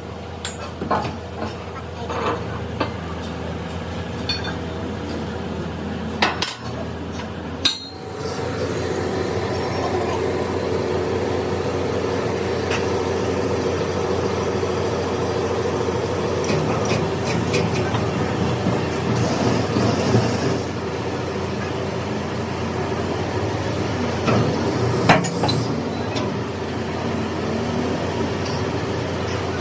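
Metal parts and hand tools clinking and knocking on metal. About eight seconds in, a workshop machine starts and runs steadily, with a few more metal knocks over it.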